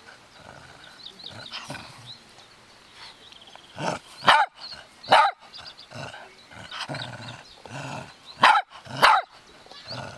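Cavalier King Charles Spaniel barking in play at a ball held out in front of it: four short sharp barks, two near the middle and two near the end.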